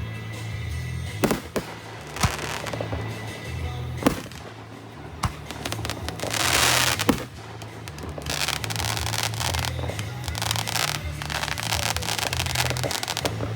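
Fireworks going off: single sharp bangs, then a louder hissing burst about six seconds in, followed by dense crackling. Music plays underneath.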